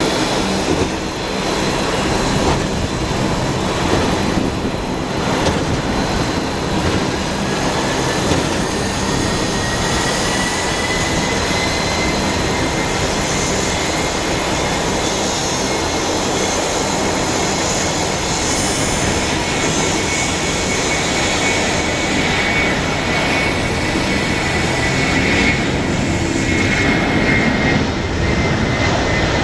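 Airbus A300-600F freighter's Pratt & Whitney PW4158 turbofans at high thrust for takeoff: loud, steady jet noise with a fan whine that rises in pitch about eight seconds in and then holds.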